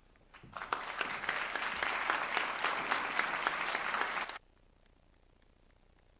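Audience applauding with dense hand clapping. It swells in over the first second or so, holds steady, then cuts off suddenly about four seconds in.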